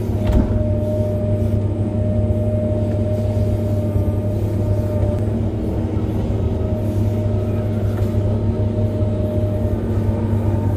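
Hitachi 470 excavator's diesel engine and hydraulics working under load, heard from inside the cab: a steady deep drone with a constant higher whine over it.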